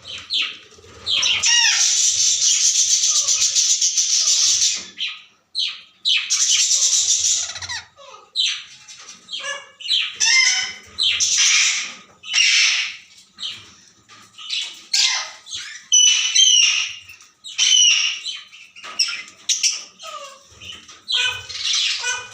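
Small pet parrots squawking and chattering: two long, loud harsh screeching stretches in the first eight seconds, then many short squawks and chirps.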